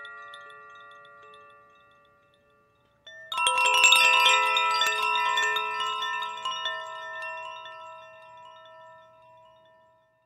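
Koshi Aqua bamboo chime ringing on and fading away to near silence; about three seconds in, the Koshi Aria chime is shaken by hand, its clapper striking the tuned metal rods inside the bamboo tube many times in quick succession, a cluster of bright tones that then rings on and slowly fades.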